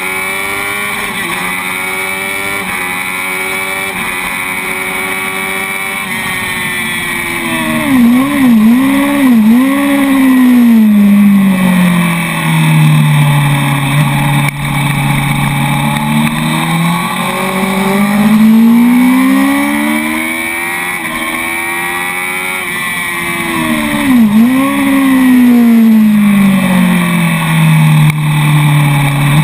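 Honda sportbike's inline-four engine heard from on board, holding high revs, then blipping sharply several times as it brakes and downshifts about eight seconds in. The revs sink low, climb again through the gears, and blip and drop once more near the end, with wind rush over it.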